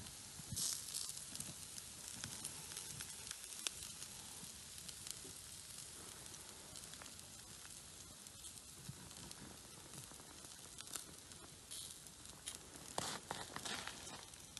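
Meat sizzling over a campfire: a steady faint hiss with scattered small crackles, and a couple of brief louder rustles about half a second in and near the end.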